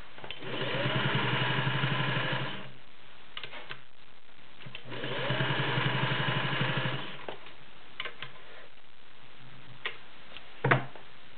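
Singer Touch & Sew 603E all-metal, gear-drive sewing machine stitching through four layers of woven upholstery in two runs, each speeding up and then slowing to a stop. A few light clicks follow, and a sharp knock near the end.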